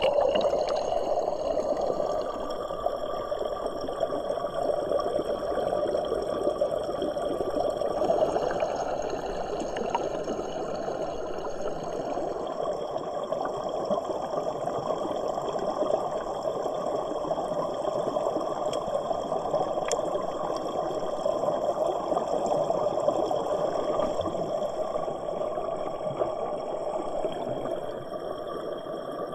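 Waterfall water rushing and splashing steadily.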